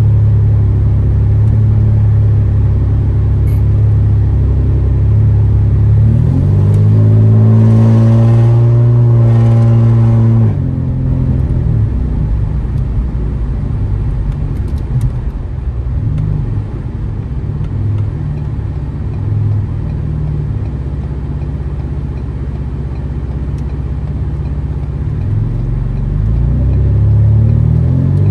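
Straight-piped, catless exhaust of a 2015 Ford Taurus Limited: a steady cruising drone, then about six seconds in the engine revs rise under acceleration for about four seconds and drop off abruptly. A lower, rougher note follows, and the revs climb again near the end.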